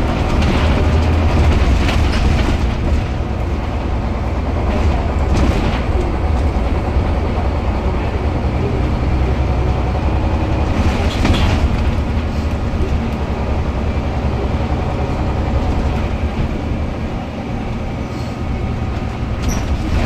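Scania L94UB bus with a ZF gearbox driving along, heard from inside the cabin: a steady low engine drone. Short rattles from the body and fittings come through, a few near 5 s and around 11 s.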